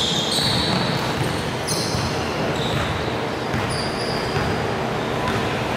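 Basketball being played indoors in a gym: the ball bouncing amid a steady din, with a few short high squeaks.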